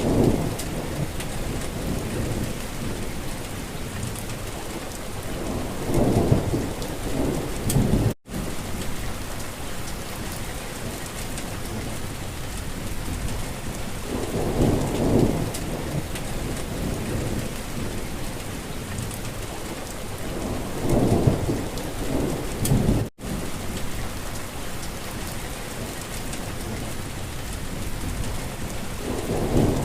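Steady rain hissing on surfaces, with a short low rumble swelling up every several seconds. Twice, about 15 seconds apart, the sound cuts out for an instant, where the looped rain recording restarts.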